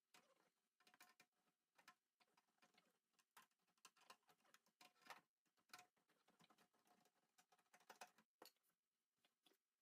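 Near silence with faint, irregular clicks and taps scattered throughout.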